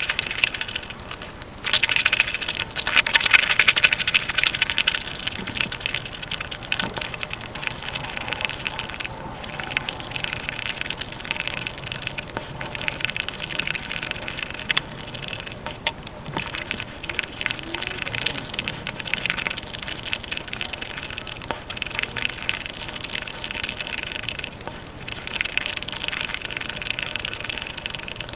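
Close-miked eating sounds played at five times speed: chewing and mouth noises of sweets run together into a dense, continuous crackle of tiny clicks.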